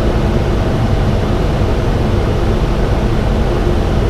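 Steady rush of airflow with a low engine hum inside a Boeing 737 cockpit on short final approach, a few hundred feet above the runway.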